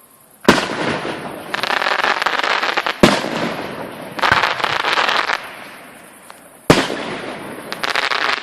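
Fireworks display: three aerial shells bang a few seconds apart, and each is followed about a second later by a longer burst of crackling.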